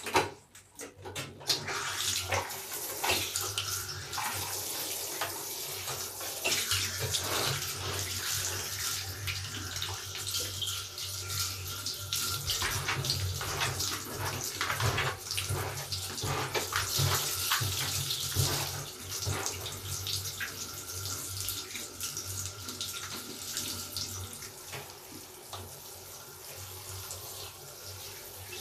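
A large wet bath sponge being lathered with soap scraps and squeezed by hand, with continuous wet squishing and crackling of soapy foam.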